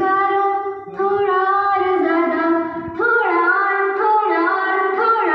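A young girl singing a Hindi song in long held notes, with short breaks about one second and three seconds in, and the melody bending up and down from about three seconds in.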